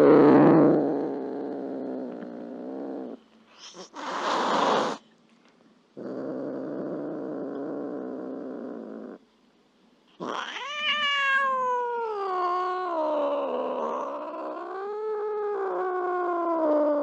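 Angry cat vocalising. A loud growl fades over the first few seconds, then a short hiss about four seconds in and a steady low growl. From about ten seconds comes a long wavering yowl that rises sharply and then slowly falls.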